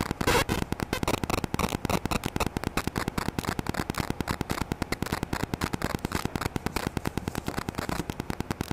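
Rapid, even clicking buzz of a GoPro's wifi interference picked up by an external microphone, about eight to nine clicks a second, over the rustle of booklets being handled.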